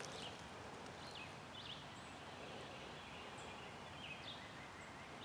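Quiet woodland ambience: a faint steady hiss with scattered short, high bird chirps about once a second.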